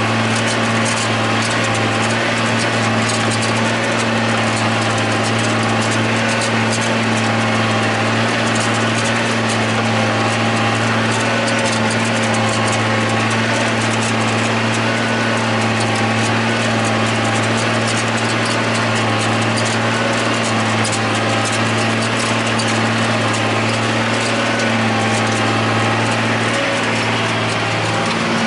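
John Deere 8100 tractor's six-cylinder diesel engine running steadily under load while pulling a disk ripper through the field, heard from inside the cab, with a steady low hum and light rattling throughout.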